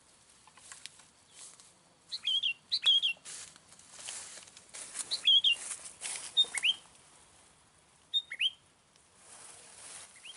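Sooty-headed bulbul calling: about five short, bubbly whistled phrases that jump up and down in pitch, in clusters with gaps between them. Scratchy noise comes in patches among the calls.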